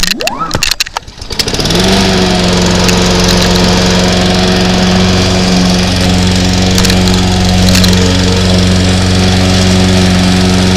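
Craftsman Platinum 190 cc walk-behind lawn mower engine pull-started. It catches about a second and a half in and then runs at a steady speed.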